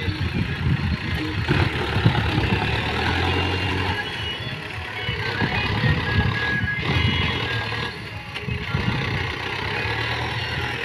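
Diesel engine of a Mahindra tractor with a front-end loader working under load, its revs rising and falling as it reverses and drives the bucket into a heap of straw chaff.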